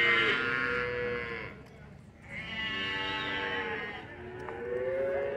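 Young calves mooing: three long, drawn-out calls with short pauses between them, the last still going at the end.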